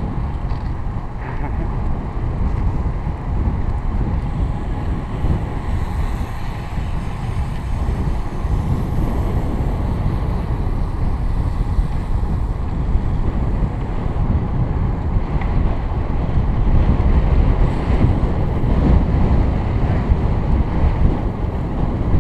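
Wind buffeting the microphone of a helmet-mounted camera on a road bike at riding speed: a steady low rumble that grows a little louder in the second half.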